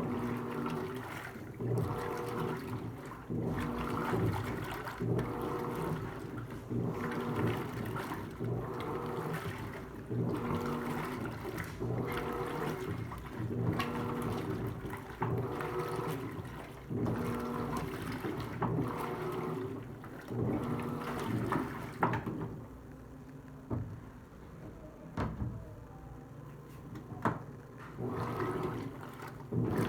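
Electrolux LTC15 Turbo top-loading washing machine agitating a load of clothes in water: the motor hum starts and stops about once a second as the agitator swings back and forth, with water sloshing. The rhythm breaks off briefly about three-quarters of the way through, then resumes.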